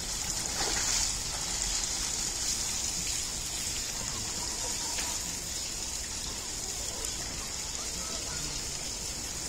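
Steady rush of running water, a little louder about a second in.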